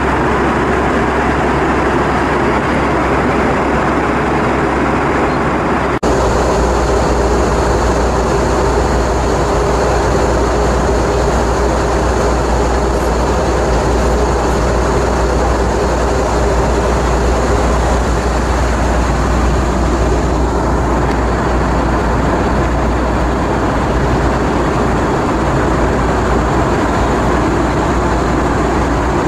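Airbus A320 cabin noise in flight: a steady rumble of engines and rushing air. The sound shifts suddenly about six seconds in, the low rumble growing stronger.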